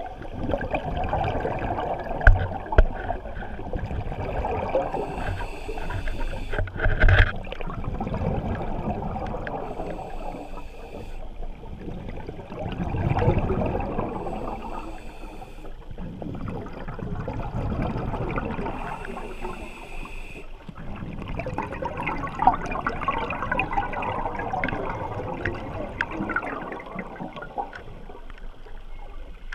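Scuba diver breathing through a regulator underwater, with bursts of exhaled bubbles gurgling and rising in swells every few seconds. A couple of sharp knocks sound in the first several seconds.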